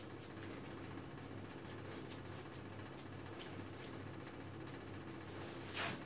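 Hands rubbing and kneading the bare sole of a foot in a massage, soft repeated strokes of skin on skin over a low steady hum, with a louder brief swish near the end.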